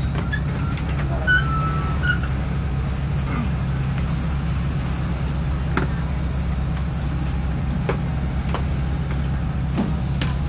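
Golden Dragon XML6125 low-entry city bus engine running with a steady low drone, heard from inside the passenger cabin. A few sharp clicks sound over it, and there are brief squeaks near the start.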